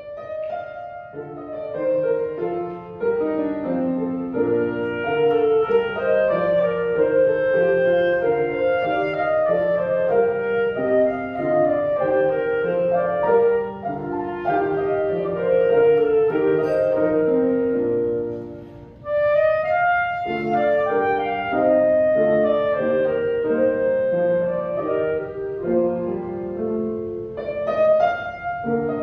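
Clarinet and grand piano playing a classical piece together, the clarinet carrying the melody over the piano accompaniment. The music starts at once, briefly drops away about two-thirds of the way through, then goes on.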